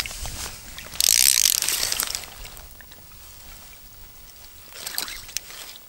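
Fishing line paying out from an ice-fishing tip-up's spool as the rig is lifted from the hole: a loud rasping whir about a second in that lasts about a second, and a fainter, shorter one near the end.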